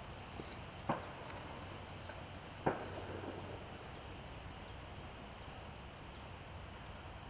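A bird calling over and over, one short high rising chirp about every two-thirds of a second, over a steady outdoor background hiss. Two sharp knocks, about a second in and just before three seconds, are the loudest sounds.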